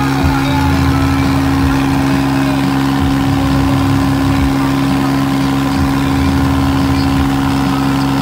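Diesel tractor engine running steadily at a constant speed while the tractor drives along a road, with a low uneven rumble underneath.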